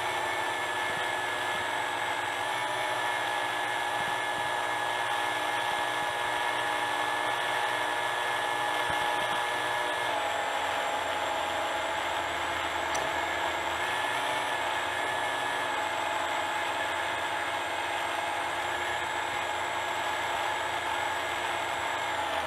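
FPV quadcopter's brushless motors and propellers whining steadily in flight. The pitch shifts slightly about ten seconds in.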